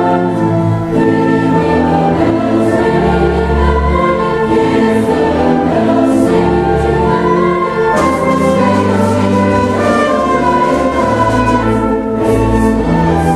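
Large mixed choir singing with an orchestra: full, held chords that shift every second or two.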